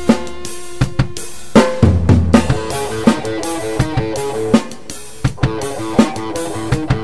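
Rock band music: a drum kit with bass drum and snare hits over held electric guitar and bass notes, changing about two seconds in to a faster run of shifting notes.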